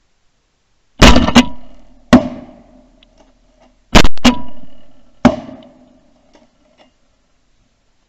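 A volley of about six shotgun shots at flying ducks: three in quick succession about a second in, then three more around four to five seconds in. Each blast is loud and sharp, with a short echoing tail.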